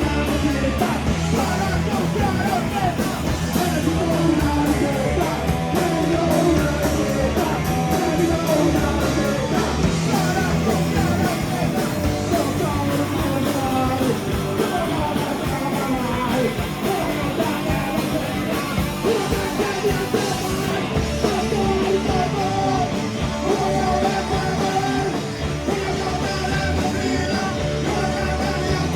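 Live rock band playing a song, with a singer's voice over the band.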